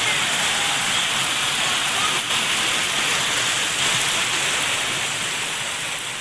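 Steady, loud rush of water that begins to fade near the end.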